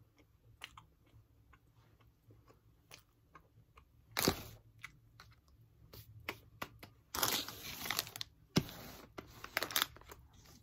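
Faint chewing of a soft cream-filled bread sandwich, then hand handling noises: a short loud rustle about four seconds in, and a plastic snack wrapper crinkling in the last few seconds.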